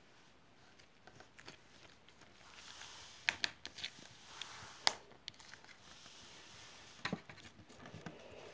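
Small slime being handled, a soft squishing and rustling broken by a few sharp pops and clicks, the loudest about five seconds in.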